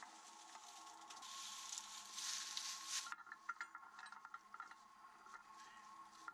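A steady hiss for about three seconds that stops abruptly, followed by light metallic clinks and clicks of a chain and hitch being handled at the back of the Jeep.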